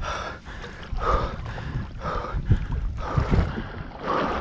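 Lake water sloshing and swishing around a person's legs as he wades through it, a surge about once a second with each stride.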